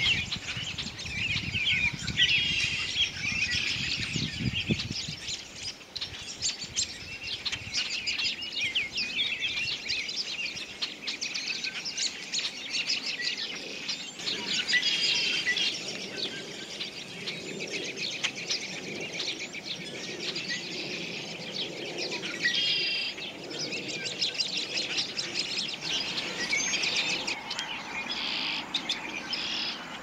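Many songbirds chirping and calling at once, short high chirps overlapping without a break. A low rumble sits under them for the first five seconds or so.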